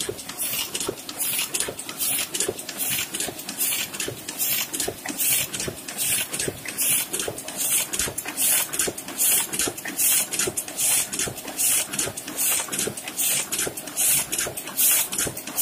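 Heidelberg GTO 52 single-colour offset press running at printing speed, its sheet feeder and cylinders cycling in a steady rhythmic hiss-and-clatter, about two pulses a second.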